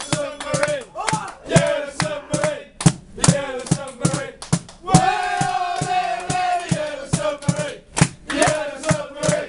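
A small group of football supporters chanting together in unison, with sharp beats keeping time.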